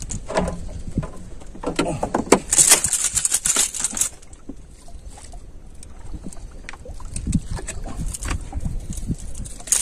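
Handling noise in a small boat as a freshly caught fish is unhooked: scattered clicks and knocks of tackle and pliers, with a burst of hiss from about two and a half to four seconds in.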